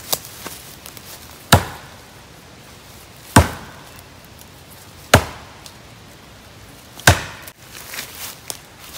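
Axe chopping into the trunk of a small standing tree to fell it: four sharp, loud strokes about two seconds apart.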